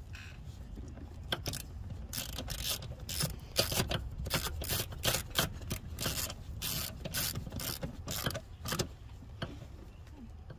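Hand ratchet with a 10 mm socket clicking in quick, uneven runs as it tightens a coil-pack bolt.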